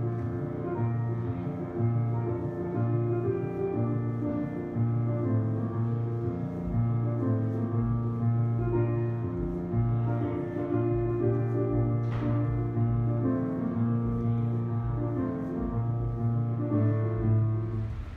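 Slow classical piano music of the kind played for ballet barre exercises, with long-held low notes under the melody.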